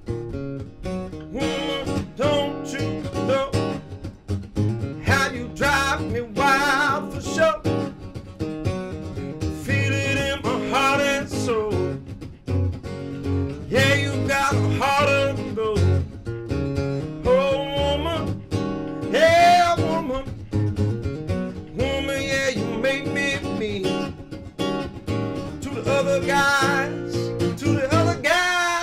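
Acoustic guitar strumming a standard blues progression while a man sings in long, wavering notes.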